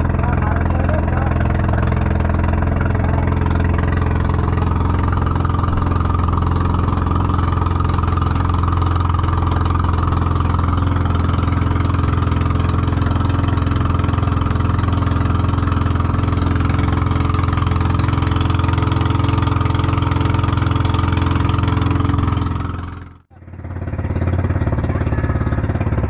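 Outrigger bangka's engine running steadily under way: a loud, constant low drone. It breaks off abruptly for about a second near the end, then comes back.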